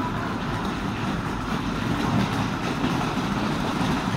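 Airport apron noise: a steady low rumble of engines and ground machinery.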